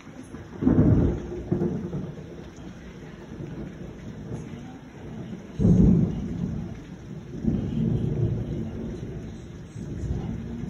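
Thunder in a heavy thunderstorm: a loud clap about a second in that rolls into rumbling, and a second loud clap a little past halfway with long rumbles after it, all over steady rain.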